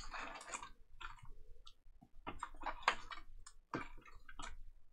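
Foil-wrapped trading card packs crinkling and clicking as a hand pulls them out of an opened cardboard hobby box, in a run of scattered short clicks.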